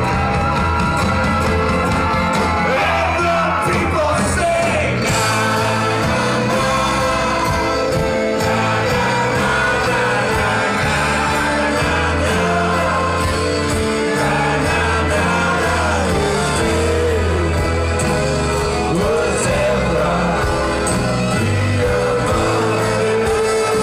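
Live band playing loud: a sousaphone carrying the bass line under drums and guitar, with singing over the top.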